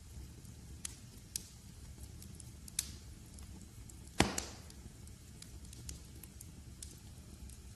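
Wood fire crackling in a fireplace: scattered small snaps over a low rumble, with one loud pop about four seconds in.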